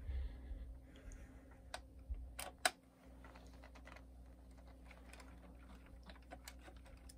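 Faint clicks and light taps of a screwdriver and fingers working a small screw into the black plastic chassis of an RC truck. A few sharper clicks come about two to three seconds in, over a steady low hum.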